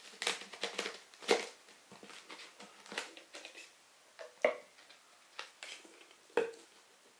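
Clear plastic tube packaging being pulled apart and handled: quick clicks in the first second, then several separate sharp plastic knocks as the lid and tube are set down on the table.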